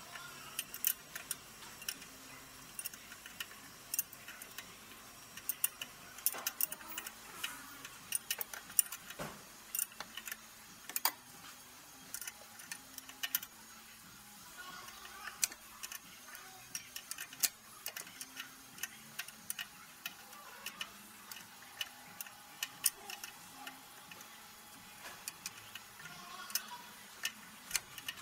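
Hand tools clicking and tapping on metal while undoing fittings on the turbocharger of a Ford Ranger 2.2 diesel engine. The sharp clicks come irregularly, often several close together, then a short pause.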